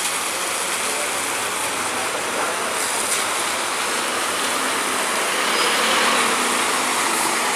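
Scania K230UB city bus driving slowly past on a wet road surface: the engine runs under light load with tyre hiss. The sound swells as the bus comes closest, about five to seven seconds in.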